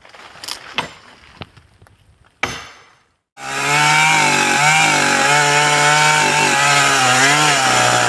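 A few scattered sharp cracks and knocks. Then, after a brief gap about three seconds in, a chainsaw running at full speed, its pitch wavering up and down as it cuts wood.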